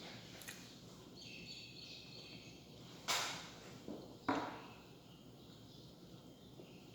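A wild bird calling for about a second and a half, a cluster of high, rough tones. After it come three sharp clatters or crunches of eating, about three and four seconds in, the loudest sounds here.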